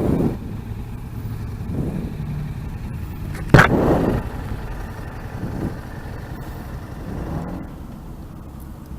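Yamaha FZ-07 parallel-twin motorcycle engine running on the road, heard through the rider's mic, its note swelling and easing a few times. There is a sudden loud burst about three and a half seconds in.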